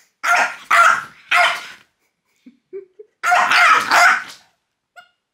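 French bulldog barking: three quick barks in the first two seconds, then after a short pause a longer run of barking.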